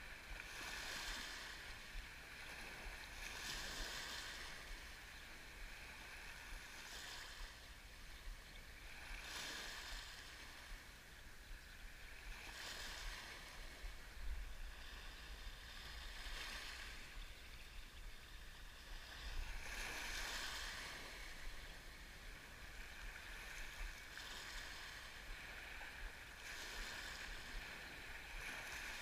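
Small waves breaking and washing up a pebble beach, a hissing swash coming in every three to four seconds.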